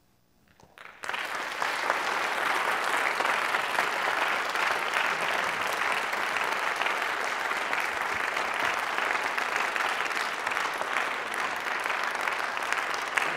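A moment of hush, then an audience breaking into applause about a second in and clapping steadily.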